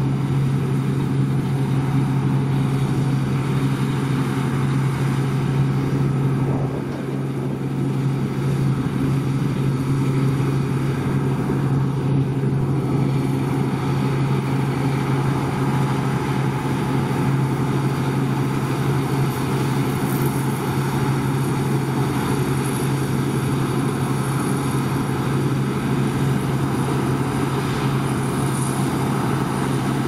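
Deutz-Fahr Topliner 4065 HTS combine harvester running steadily under load while cutting and threshing spring barley, its engine and threshing gear giving a steady low hum.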